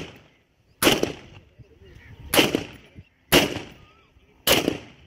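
Colt AR-15 (M4-pattern) rifle in 5.56×45 mm firing four single shots, spaced roughly a second apart. Each shot is a sharp crack followed by a short echo.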